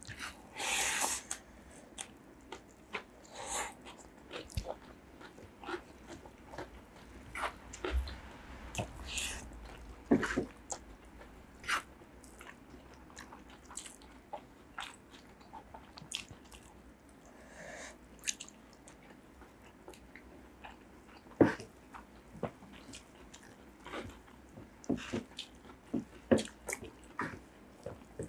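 Close-miked mukbang eating sounds: two people chewing and biting mouthfuls of rice and egg-and-potato curry eaten by hand, with scattered short mouth clicks and smacks.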